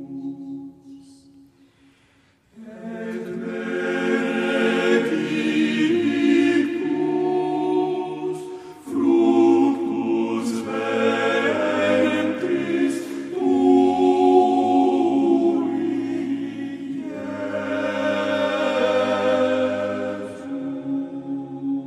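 Background choral music: a choir holding long sustained chords that change every few seconds. It dips nearly to silence about two seconds in, then the voices swell back in.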